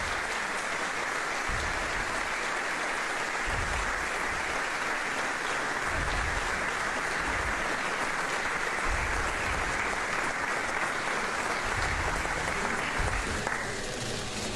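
Audience applauding steadily for a long stretch, dying down near the end.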